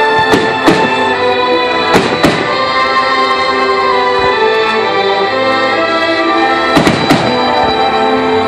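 Aerial firework shells bursting with sharp bangs: two about half a second in, two more at about two seconds, and a quick cluster near the end. Under them runs steady instrumental music of held, sustained notes.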